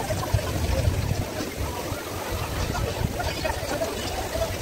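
Water-park ambience: a steady rush of water running down the water slides into the pool, with a low, uneven rumble underneath.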